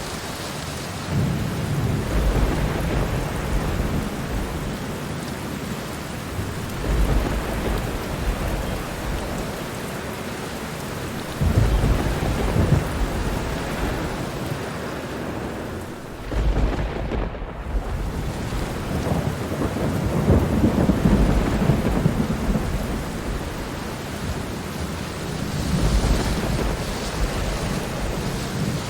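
Steady heavy rain with thunder rolling several times, the longest roll lasting several seconds in the second half.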